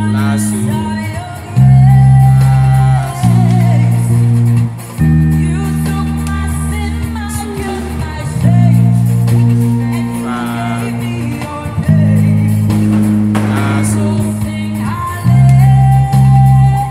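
Electric bass playing long, held low notes, changing note every one to three seconds, along with a recorded gospel song with singing over it.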